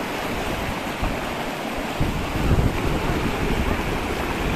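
Shallow mountain river rushing and splashing over rocks, heard close. About two seconds in, wind buffeting on the microphone adds a low rumble.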